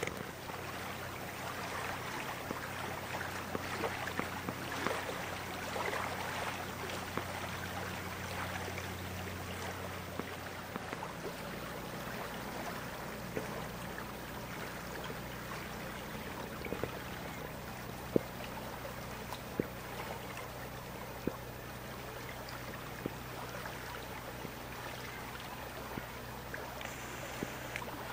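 Lake water lapping and trickling along the shore, a steady wash with scattered small clicks. A low steady hum lies under it for about the first ten seconds, then drops away.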